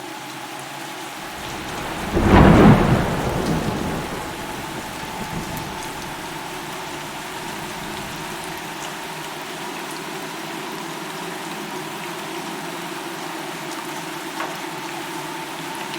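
Steady rain falling, with a loud clap of thunder about two seconds in that rumbles away over the next couple of seconds.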